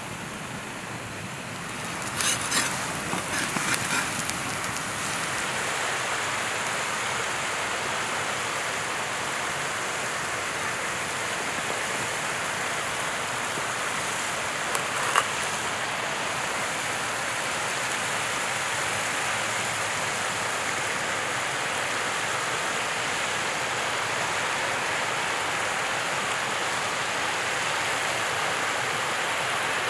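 A steady rushing outdoor noise, with a cluster of crisp clicks about two to four seconds in. Around fifteen seconds in there is one sharp click as a knife cuts through the baked focaccia crust onto a wooden board.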